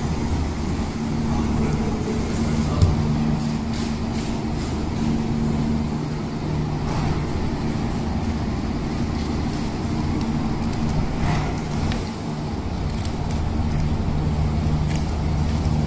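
Steady low mechanical hum of machinery running, with scattered light clicks and scrapes of a long knife cutting a tuna along its backbone.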